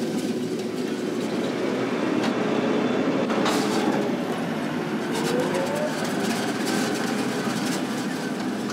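Tractor engine running steadily while pulling a seed drill through a food plot, with frequent short knocks and rattles from the machinery.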